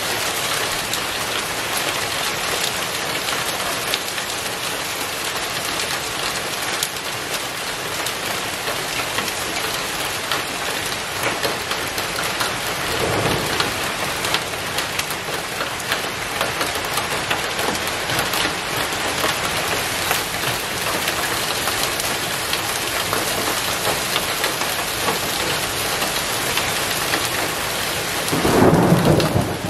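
Heavy rain pouring down steadily in a thunderstorm, with a low rumble of thunder about halfway through and a louder one near the end.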